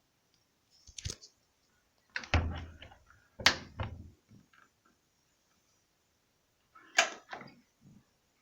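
A few separate sharp knocks and clunks with short tails, the loudest about two and a half, three and a half and seven seconds in.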